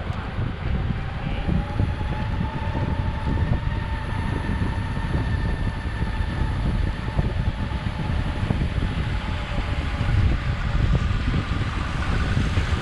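Metroboard electric skateboard rolling over pavement: a steady low rumble from the wheels, with a faint motor whine that slowly rises and falls in pitch with speed.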